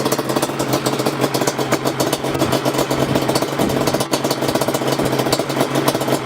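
Yamaha Banshee's twin-cylinder two-stroke engine running through Toomey T6 expansion-chamber exhausts, with a rapid, steady crackling exhaust note.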